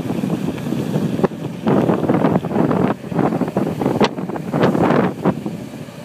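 Wind buffeting the microphone of a phone carried on a fast downhill ride, coming in uneven gusts, with a couple of brief knocks.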